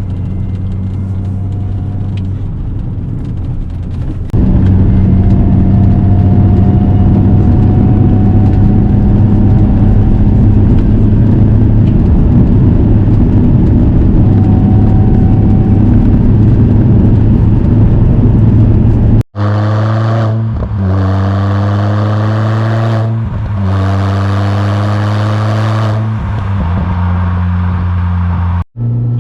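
Supercharged R53 Mini Cooper S engine running at a steady cruise, louder from about four seconds in. About two-thirds of the way through it accelerates hard, its pitch rising in three pulls broken by two quick gear changes.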